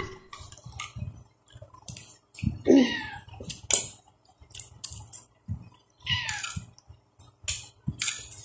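Irregular small clicks, taps and brief scrapes of fingers picking rice out of a cooking pot close by, while eating by hand.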